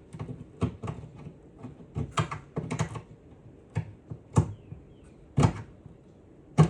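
Irregular clicks and knocks of small hardware being handled while screws are set into a console plate, with a sharper knock near the end.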